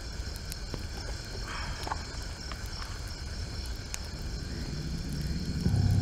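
Night ambience of crickets chirping steadily over a low rumble, with a few faint crackles from the campfire. Near the end a loud, steady low drone comes in.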